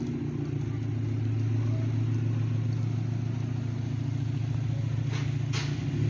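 Subaru Impreza STI's turbocharged flat-four engine running steadily at low revs, freshly given a stage 1 tune with crackles. Two short, sharp snaps come about a second before the end.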